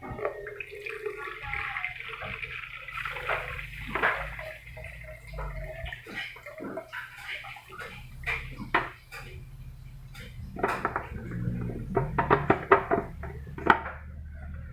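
Water splashing and running in a humidifier's plastic water tank, then a run of sharp clicks and knocks as the plastic tank and parts are handled and fitted back in place, densest near the end.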